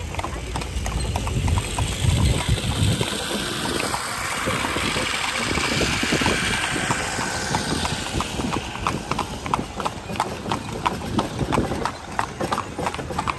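Horse's hooves clip-clopping steadily as a horse-drawn carriage (calèche) moves along. A rushing noise swells for a few seconds in the middle, then fades.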